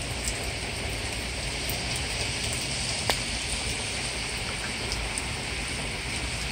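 Steady heavy rain from a supercell thunderstorm falling and splashing on the street, lawns and parked cars, with a single sharp tap about three seconds in.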